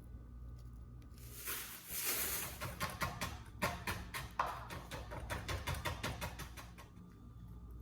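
Kitchen cooking sounds: a burst of hiss about a second and a half in, then a fast, uneven run of clicks and knocks, like a utensil working in a pan, that stops about seven seconds in.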